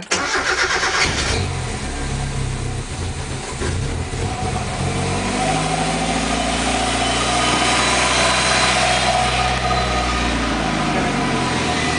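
Mazda MX-5's four-cylinder engine starting, catching within about a second and settling into a steady run. About five seconds in the revs rise and hold higher, then drop back shortly before the end.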